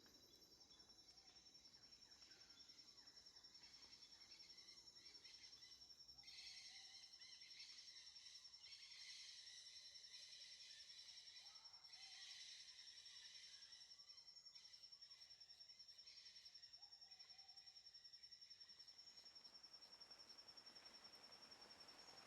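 Faint insect chorus: a steady high-pitched trill, joined by four louder rasping bursts of a second or two each, starting about six seconds in.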